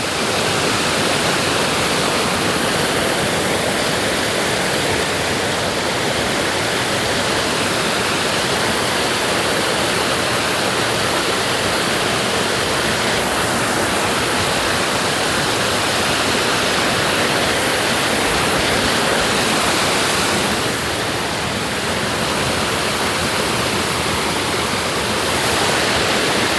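Waterfall: steady rushing of falling water, even and unbroken.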